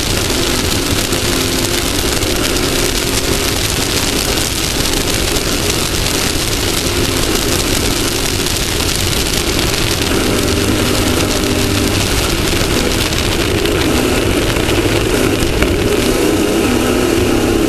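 Onboard sound of a Class 1600 off-road race buggy at speed: its engine running steadily under load, its pitch shifting a little partway through, over a constant rush of wind and terrain noise.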